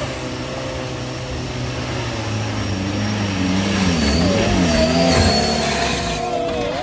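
Isuzu Traga pickup's diesel engine labouring as the heavily loaded truck climbs a steep dirt slope, its revs rising and wavering from about three seconds in. It is loudest as the truck comes up close, about five seconds in.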